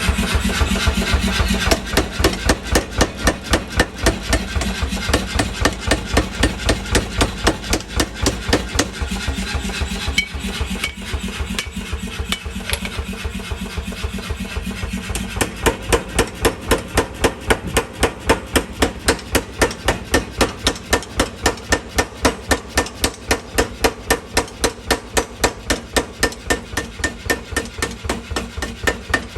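Power hammer pounding steel in a steady rhythm, about two to three blows a second, over the steady hum of its running motor.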